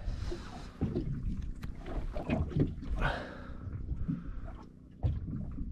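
Irregular knocks and bumps of gear being handled in a small fishing boat.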